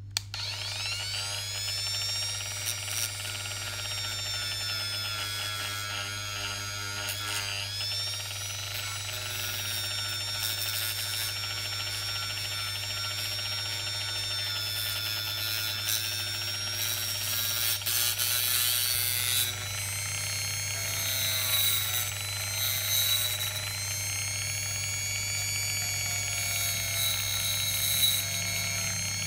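Small handheld rotary tool with a buffing wheel, spinning up at the start and then running with a steady high whine. Its pitch dips briefly about seven seconds in, and in the second half bursts of rubbing noise come and go as the wheel is pressed against the work.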